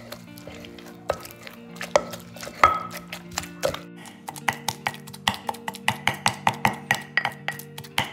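Wooden pestle pounding fish meat in a clay mortar, working the added ice water into a sticky fish-ball paste: dull strokes, irregular at first, then a fast steady rhythm of about four to five a second from about halfway, over background music.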